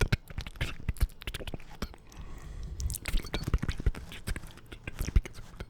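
Close-miked ASMR mouth sounds: wet lip and tongue clicks and smacks, many short sharp clicks coming irregularly, with a brief lull about two seconds in.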